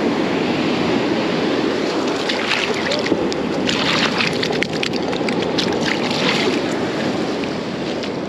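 Ocean surf rushing steadily, with wind on the microphone, and a spell of light clicks and rattles in the middle.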